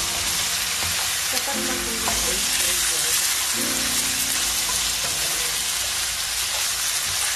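Cabbage, carrots and chicken sizzling steadily in a hot pan while being stirred and turned with a wooden spatula.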